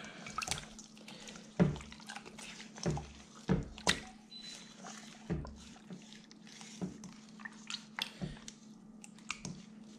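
Hands squishing and rubbing a wet marinade into pork ribs in a stainless steel bowl: irregular wet slaps and squelches, a few of them sharper than the rest.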